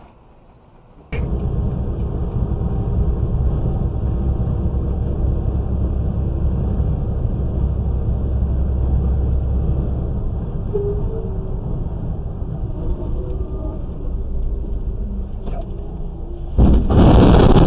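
Steady low road and engine rumble inside a vehicle at highway speed, heard through a dashcam's microphone. Near the end it jumps into a sudden, much louder rush of noise with sharp knocks.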